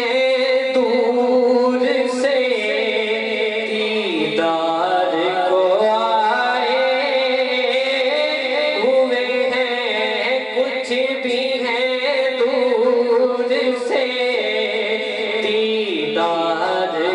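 A man singing a solo Islamic devotional recitation into a microphone, holding long notes with wavering, ornamented pitch.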